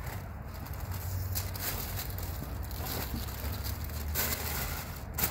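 Tissue paper rustling and crinkling in short bursts as sneakers are lifted out of their wrapping in a cardboard shoebox, over a steady low rumble.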